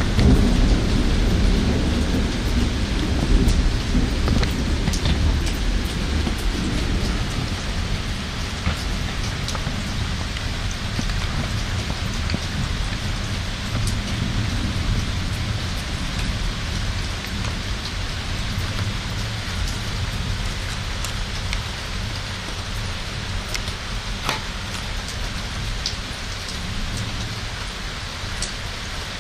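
Steady rain of a thunderstorm, with scattered sharp ticks of drops striking a surface. A low thunder rumble fills the first several seconds and fades away.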